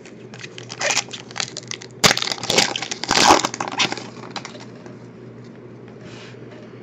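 Plastic trading-card pack wrapper crinkling as it is opened and handled: a run of crackly bursts from about half a second to four seconds in, loudest between two and three and a half seconds.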